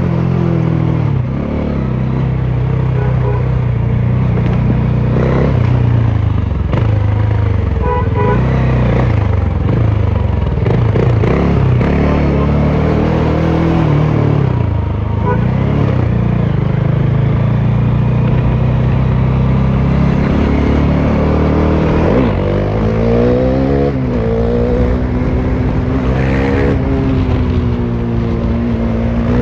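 Bajaj Dominar 400's single-cylinder engine, running straight through with no muffler, at a steady cruise on the open exhaust. Near the end the revs climb, drop sharply, climb again and drop once more, as they do through gear changes under acceleration.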